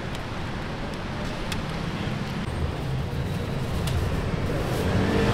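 Street traffic noise: a steady low rumble of passing vehicles, with one engine growing louder near the end. A couple of faint clicks sound over it.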